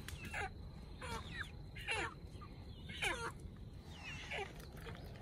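Chickens calling: about five short calls, each sliding down in pitch, roughly one a second.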